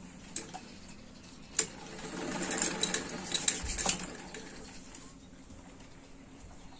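Household sewing machine, freshly oiled, running briefly: a rapid rattle of clicks that swells about two seconds in and fades after about four seconds, with a few scattered clicks before it.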